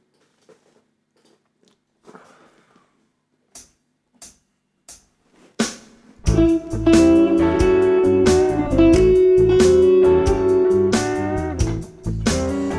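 Four evenly spaced clicks count in a shuffle blues backing track in A, with drums and bass starting about six seconds in. An electric guitar plays sustained, bending blues lead lines over it.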